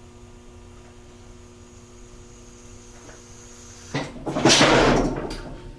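Steady electrical mains hum. About four seconds in, a sudden loud rushing, rustling noise breaks in and fades over about a second and a half.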